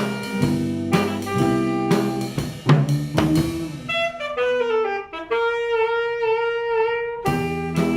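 Small instrumental band playing a jazzy arrangement with drum kit. About halfway through, the band and drums drop out for a solo melody phrase that ends in a long held note with vibrato. The full band comes back in near the end.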